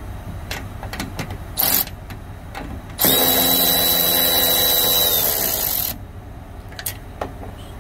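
Milwaukee cordless ratchet spinning a 10 mm nut off the door check. A short burst comes about a second and a half in, then a steady run of about three seconds starting about three seconds in, with a few light clicks around it.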